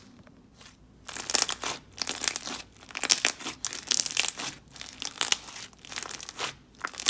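Thick pigmented clear slime with pearl add-ins being squeezed and kneaded by hand, giving irregular wet crackles and bubble pops that begin about a second in.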